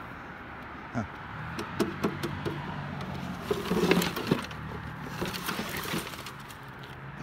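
Irregular knocks, clunks and rattles of plastic and metal scrap being handled in a curbside junk pile, with the loudest clatter about four seconds in.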